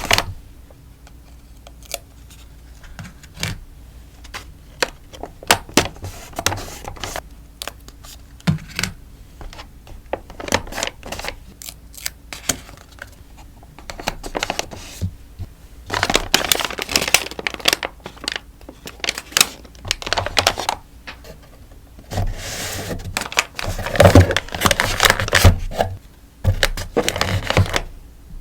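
Close-miked packing of sticker orders: scattered taps, clicks and scrapes of small sheets and packaging being handled, then longer stretches of rustling, crinkling plastic and paper in the second half.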